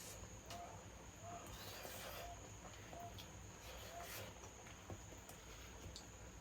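Faint outdoor ambience: a steady high-pitched insect trill, with a short call repeating about once a second and a few faint clicks.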